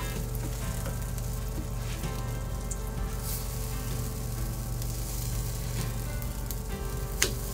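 Pancakes sizzling in butter in a frying pan, a steady sizzle, with one sharp tap near the end.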